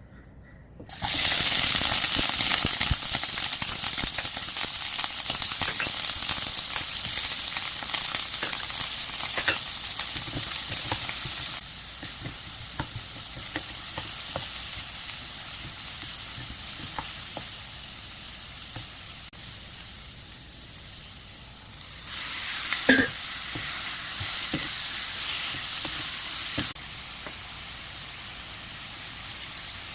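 Food sizzling in hot oil in a pan during a stir-fry, with short clicks and scrapes of a utensil stirring. The sizzle starts about a second in and its level changes abruptly a few times.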